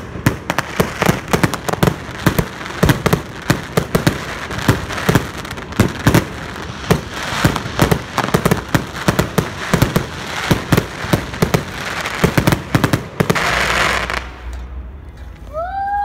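Fireworks display: rapid, overlapping bangs of aerial shells bursting, with a spell of dense crackling about 13 seconds in, then thinning out near the end.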